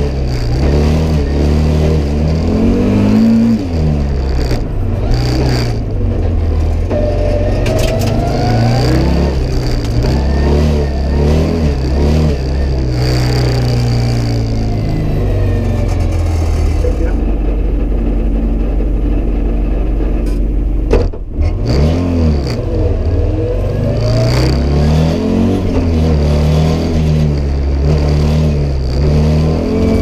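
Audi Sport Quattro S1 rally car's turbocharged five-cylinder engine, heard from inside the cockpit, revving up and dropping back again and again under hard acceleration and lift-off. A single sharp crack comes about two-thirds of the way in.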